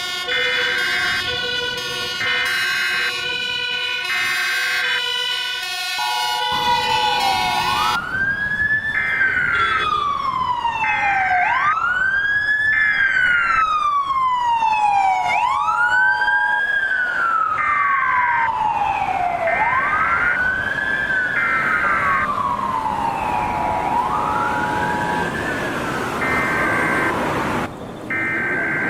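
Emergency Alert System alarm: a repeating pattern of stacked electronic alert tones, then from about six seconds in a wailing siren that rises quickly and falls slowly about every four seconds, over tones that switch on and off.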